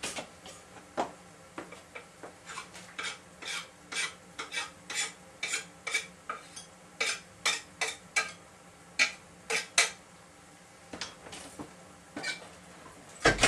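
A metal utensil clinking repeatedly against a pan or dish in a stirring rhythm, about two sharp clicks a second, thinning out to a few scattered clinks after about ten seconds.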